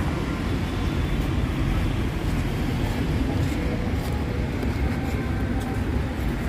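Outdoor street ambience: a steady low rumble of street and traffic noise, with faint scattered clicks from about halfway through.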